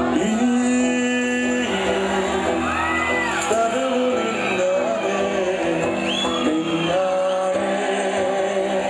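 A live band playing a song, with a singer's voice and shouts and whoops from the crowd over the music.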